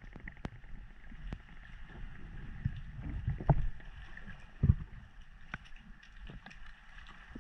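Underwater noise heard through a diver's camera housing: a low rumble of moving water with scattered faint clicks, and two dull thumps about three and a half and just under five seconds in.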